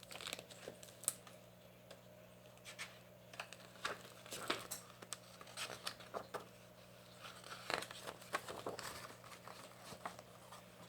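Faint paper rustling and crinkling with scattered small ticks, typical of a picture book's pages being handled and turned, over a steady low electrical hum.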